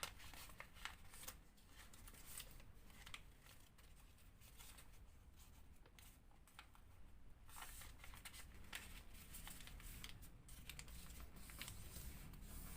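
Faint rustling and crinkling of origami paper being folded and tucked by hand, with scattered soft clicks of the paper creasing.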